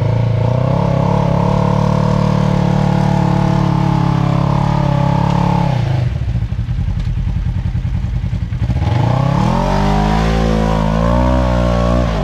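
Polaris RZR side-by-side's engine revving hard and held high as its 34.5-inch Outlaw 2 mud tires spin through deep mud. The revs drop away about six seconds in, then climb again and hold high for the last few seconds.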